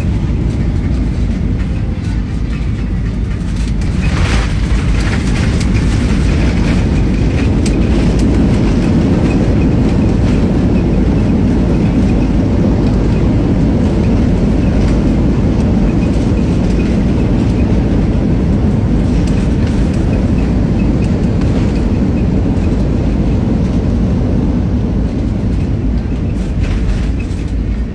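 Airliner cabin noise: the steady, loud rumble of engines and rushing air heard from inside the cabin. It grows louder about four seconds in.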